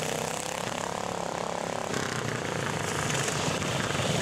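Small garden tractor engines running hard as the tractors race around a dirt track, with the engine note rising and falling as one passes close by.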